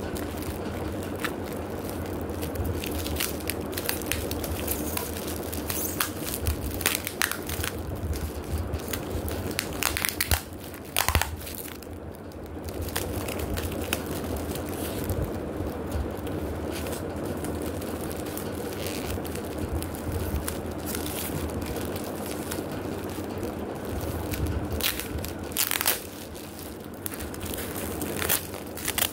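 Clear plastic packaging crinkling and crackling as packets of plastic table covers are handled and turned over, in irregular bursts with a couple of louder crunches.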